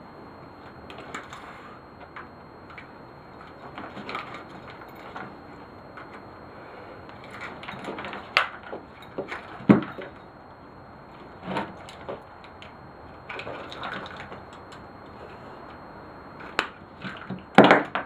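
Irregular knocks, clanks and rattles of lawnmower parts being handled and pried at during dismantling, over a steady background hiss. The loudest knocks come about ten seconds in and just before the end.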